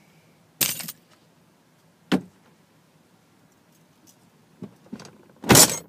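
Metal jiggler keys clicking and rattling in the lock of a Honeywell safe: a short rattle about half a second in, a sharp click about two seconds in, a couple of small clicks, then a louder rattle near the end.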